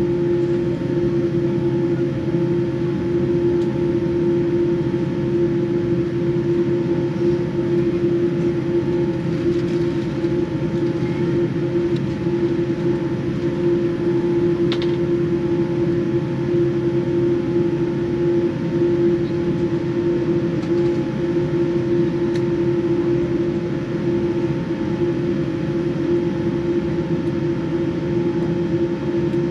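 Boeing 787 cabin noise while taxiing: a steady drone from the engines at low power and the cabin air system, heard from inside the cabin. A strong, steady hum tone runs through it.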